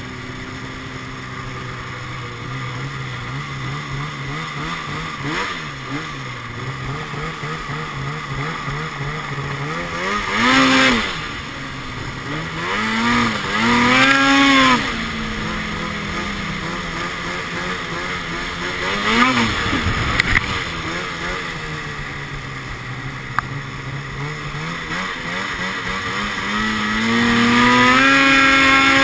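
2012 Arctic Cat XF 800 snowmobile's two-stroke twin engine running through a Sno Stuff aftermarket silencer, revving up and down on the ride. Several sharp throttle bursts come in the middle, and the revs climb long and high near the end.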